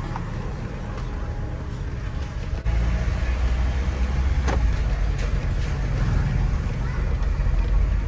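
A car on the move: a steady low rumble of engine and road noise, which gets suddenly louder about two and a half seconds in and stays so.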